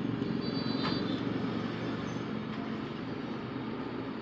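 Steady low rumble of a running motor, unbroken and even.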